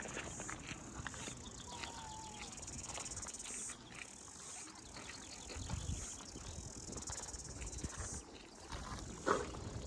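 Insects chirring in a high, finely pulsing drone that comes in stretches of a couple of seconds, stopping and starting again several times, with scattered faint clicks.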